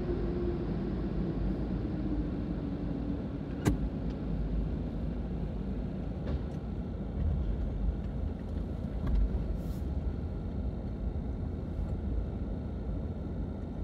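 Low rumble of a car's engine and tyres heard from inside the cabin as the car pulls slowly away, with a falling whine that fades over the first few seconds and one sharp click about four seconds in.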